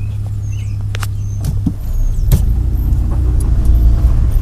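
Car interior noise: the engine running with a steady low hum that grows louder about two seconds in as the car picks up, with a few light clicks and rattles.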